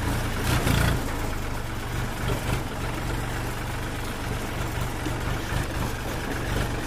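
Farm tractor's diesel engine running steadily as it drives, heard from on the tractor just behind the exhaust stack: a low, even drone.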